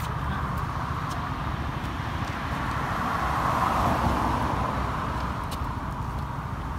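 Road traffic: a car's tyre noise swells to a peak about four seconds in and fades. Underneath is a steady low rumble of wind on the microphone of a rider in motion.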